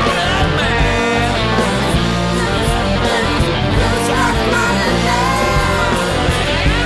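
Blues-rock band music with electric guitar to the fore over bass and drums.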